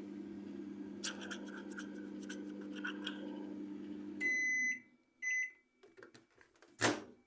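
Microwave oven running with a steady hum, which stops about four seconds in as the timer beeps twice to signal the end of the cycle. A few light clicks follow and a loud clack near the end.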